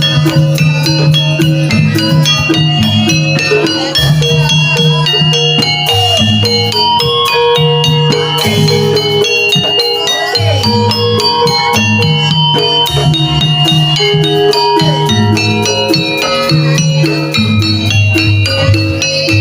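Javanese jaranan ensemble music: gamelan-style pitched metal percussion ringing over a steady repeating bass pattern and dense rattling percussion.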